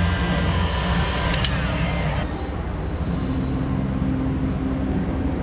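Steady low mechanical hum with a higher, many-toned whine over it that cuts off suddenly about two seconds in, after a brief click and falling glide.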